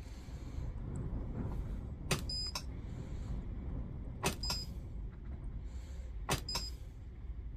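Battery spot welder firing on 18650 cells, tacking nickel connector strip: three pairs of sharp snaps about two seconds apart, the two snaps in each pair a quarter second apart, over a steady low hum.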